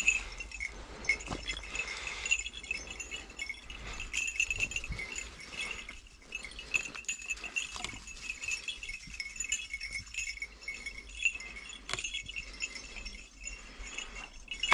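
Small bells on the collars of hunting hounds jingling continuously as the dogs search for a hare's scent, with scattered small knocks and rustles of movement over stony ground.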